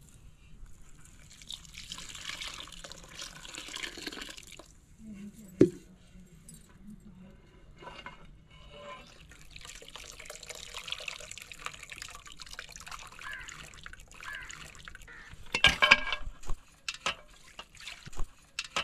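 Water poured from steel vessels splashing and trickling over boiled vermicelli noodles in a steel pan, in two long pours. A sharp knock comes about a third of the way in, and loud clanks of metal pots near the end.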